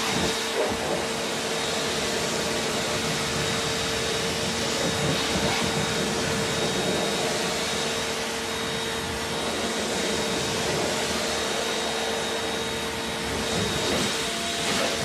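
Bossman BPC-4830 2000-watt electric pressure washer running, a steady hum from the motor and pump over a broad hiss of water spray.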